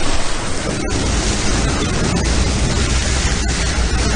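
Car driving through deep floodwater: a loud, steady rush of water churning and spraying against the car, heard from inside the cabin, with a low rumble underneath that grows stronger about a second in.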